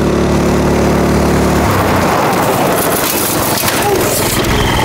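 Small go-kart engine running at a steady speed. About two seconds in it gives way to a rough, noisy rush, like tyres on gravel and wind.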